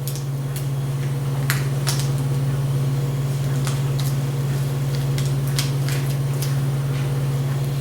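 A steady low hum, with a few faint light clicks and taps from handling the laptop's screen parts and connector.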